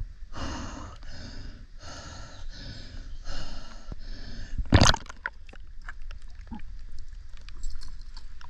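A spearfisher breathing hard through a snorkel at the surface, short rasping breaths in quick succession. About five seconds in there is one loud rush as he goes under, then faint scattered clicks underwater.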